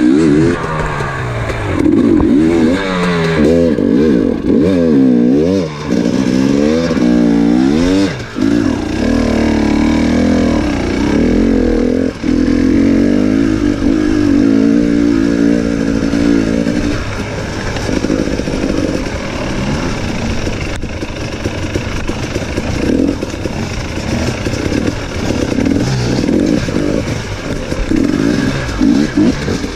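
KTM enduro motorcycle engine, revving up and down again and again over the first several seconds, then running with steadier throttle. After that it turns rougher and more uneven, with short blips of the throttle.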